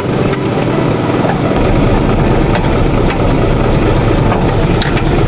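Mitsubishi Fuso 6D15 inline-six turbo diesel engine idling steadily, heard from underneath the truck, with a deeper low rumble coming in about a second and a half in.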